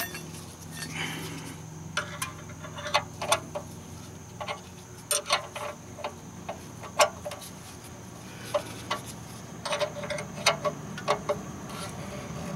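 Open-end wrench clicking against an oil-pan drain plug as the plug is tightened in short strokes: irregular sharp metal clicks, often in quick pairs.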